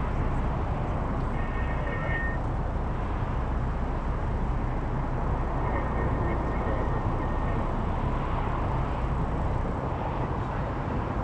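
Car engine idling steadily, a low even rumble heard from inside the stopped car, with two faint short high tones about two seconds and six seconds in.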